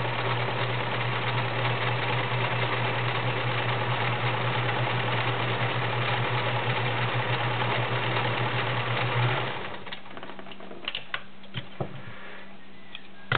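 Kenmore model 1931 convertible sewing machine running steadily, sewing a cam-driven ball stitch, with a steady motor hum; it stops about nine and a half seconds in, followed by a few light clicks.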